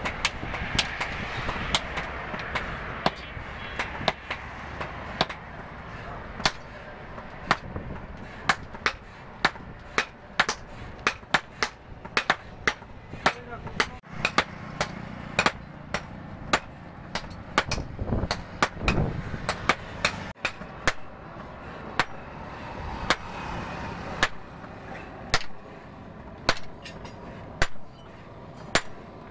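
Blacksmith's hand hammer striking red-hot leaf-spring steel on an anvil while forging a meat cleaver. The blows are sharp and irregular, about one to two a second, many with a short high metallic ring.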